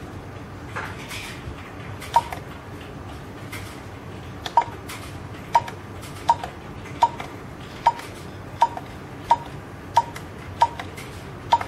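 INJES fingerprint access-control terminal beeping once for each key pressed as an ID number and password are typed in: about eleven short, identical beeps, spaced a little under a second apart, starting about two seconds in.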